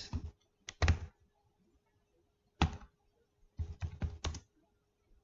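Computer keyboard keystrokes in short scattered groups, a few keys at a time with pauses between, the last and longest run of four or five strokes coming about four seconds in.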